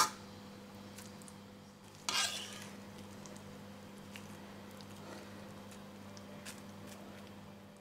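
A metal spoon scrapes briefly against the steel pot about two seconds in. After that come faint soft scrapes and crinkles as a silicone spatula spreads thick vegetable paste over cling film in a tray, over a low steady hum.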